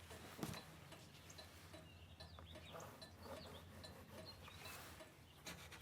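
Near silence: faint background ambience with a low steady hum and a few faint, short high chirps.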